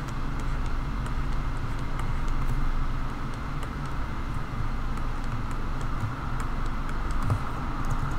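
Steady low hum of background noise, with faint scattered clicks.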